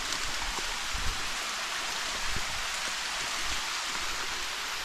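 Small waterfall running at a low trickle, giving a steady, even hiss of falling water.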